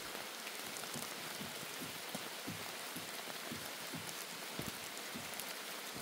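Steady shower rain falling, with a few soft low thuds scattered through it.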